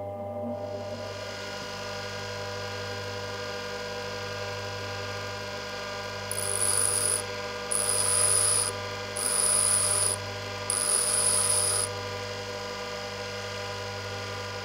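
Bench grinder running with a steady motor hum, and four grinding bursts of about a second each as a steel twist drill bit's tip is pressed against the white grinding wheel to sharpen it.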